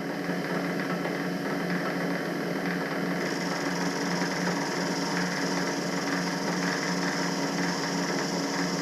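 Milling machine starting up and then running steadily with an even motor hum, set to mill down the vise's steel locating keys.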